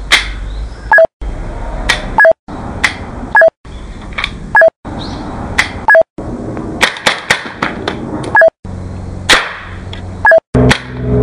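Marushin M92FS model gun firing cap-loaded cartridges: a string of sharp cap bangs and slide clicks, about one a second, each in a short segment that is cut off abruptly, with a brief beep tone just before each cut.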